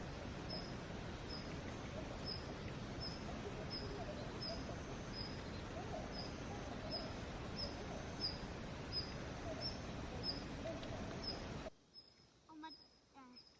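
An evenly repeating series of short high chirps, a little over two a second, from a bird or insect, over a steady outdoor hiss that cuts off suddenly near the end.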